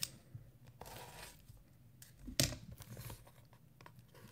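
Cardboard trading-card boxes handled and shrink-wrap crinkling, with a click at the start and a sharp knock about two and a half seconds in.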